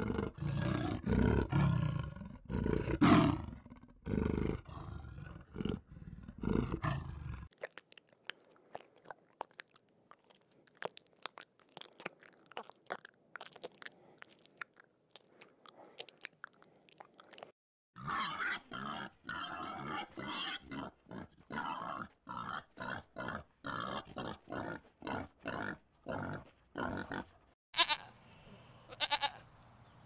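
A leopard's deep grunting calls, a string of loud pulses over the first several seconds. Then come faint scattered clicks, and later an ibex tearing and chewing grass in a steady rhythm of about two bites a second.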